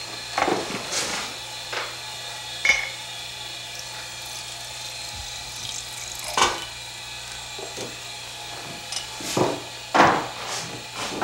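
Irregular knocks and a ringing clink from a glass bottle and jar being handled and set down, over a steady low hum.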